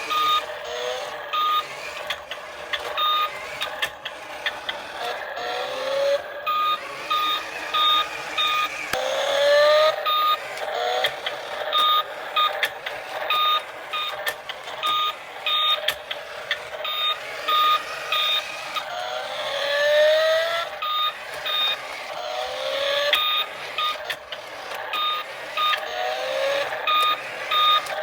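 A toy vehicle's electronic sound effects: short beeps repeating in quick regular groups, mixed with short rising tones every second or two.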